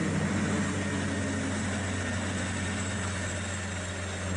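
A small motor running steadily, a constant low hum under an even hiss.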